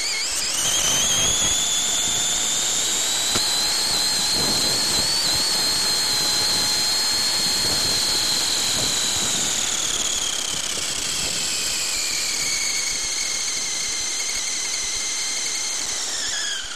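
RC off-road buggy's motor and drivetrain whining at high pitch, with the rush of tyres on gravel underneath. The whine rises as it speeds up in the first second, holds, sinks slowly from about ten seconds in as it slows, and drops away at the end.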